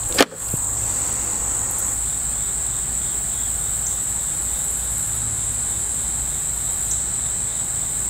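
Insects droning steadily in one continuous high-pitched band, after a short click at the very start.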